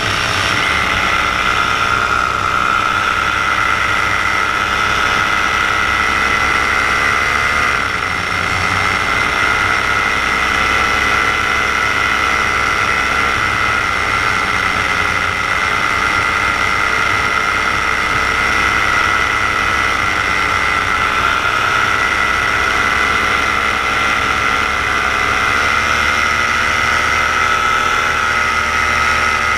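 Paramotor engine and propeller running steadily in flight, the pitch dipping and recovering slightly a couple of times as the throttle changes.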